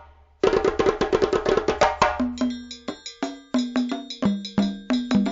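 Background music that starts about half a second in with a fast run of percussion strikes; from about two seconds in, short struck pitched notes carry a rhythmic melody.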